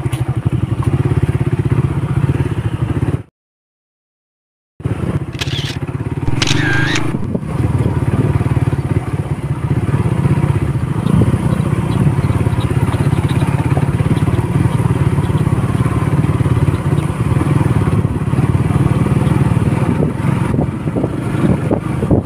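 Small motorcycle engine running steadily while riding along a rough dirt track, with road noise under it. The sound cuts out completely for about a second and a half a few seconds in.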